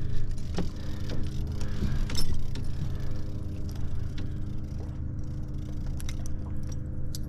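Boat motor running steadily at trolling speed, with a few light clicks and knocks.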